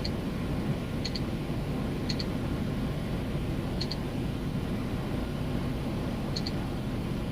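Steady low rumble of an idling semi-truck heard inside the cab, with faint short double ticks now and then, about five times at uneven gaps.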